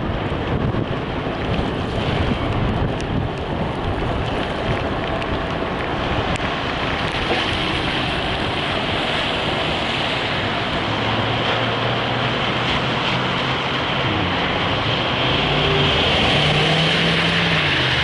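Car on the move, with steady road and wind noise. An engine hum comes up in the last several seconds and steps up in pitch.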